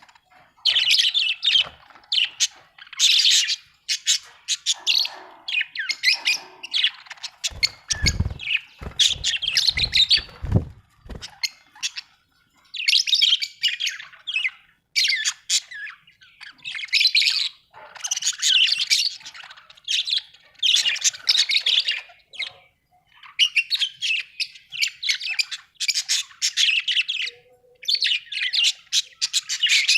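Budgerigars chattering in repeated bursts of warbling chirps and squawks, each a second or two long with short gaps between. About eight seconds in comes a run of low thuds lasting about three seconds.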